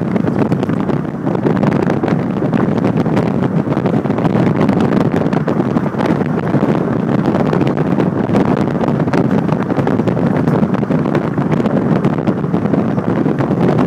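Steady rushing wind noise on the microphone of a camera held in a slow-moving car, over the car's running and road noise.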